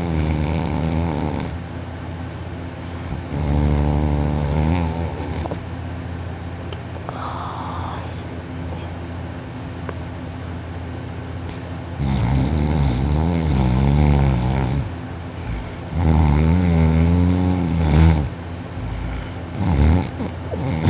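A young man snoring loudly in deep sleep, lying on his back. Several long, rattling snores come in bouts, with a long pause in the middle and a short snore near the end.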